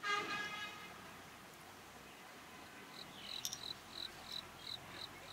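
A short, loud pitched call at the very start, then from about three seconds in an insect chirping: short high chirps repeated evenly about three times a second, with one sharp click among them.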